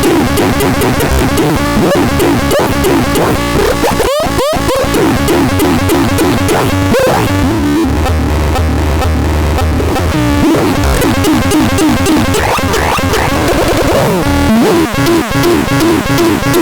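ASTA PTS 61 electronic instrument playing a dense, discordant mix of synthesizer tones with many sliding pitches, with a steady low drone held for a couple of seconds near the middle.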